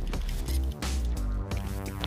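Background music with a deep bass line and held notes.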